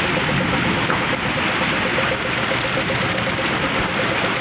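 Heavy rain pouring down steadily, an even hiss with no breaks. A faint steady tone sits underneath it.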